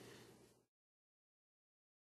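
Faint room tone with a low steady hum, fading out within the first second into complete silence.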